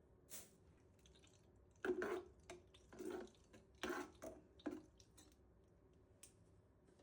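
A handful of short, faint wet handling sounds from cleaning, coming about a second apart between roughly two and five seconds in.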